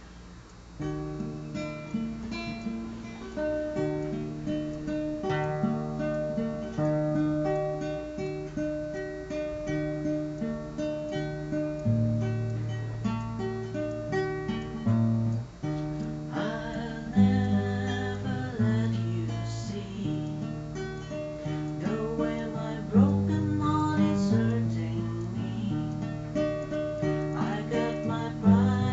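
Acoustic guitar played solo: picked chords over a moving bass line, getting busier with more strumming from about halfway through.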